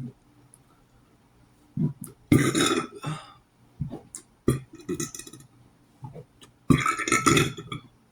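A person burping loudly several times in a row, in separate bursts about a second or two apart.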